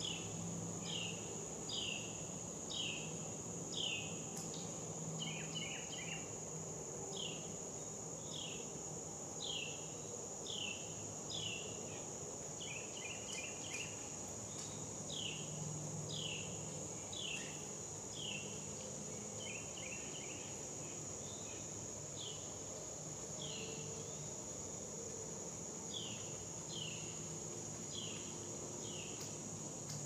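A songbird sings a long series of short, down-slurred whistled notes, roughly one or two a second, with a few quick chattering runs mixed in. A steady, high-pitched insect drone runs underneath.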